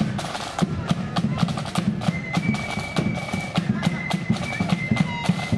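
Marching flute band playing: held flute notes over sharp, quick snare drum strikes and bass drum beats.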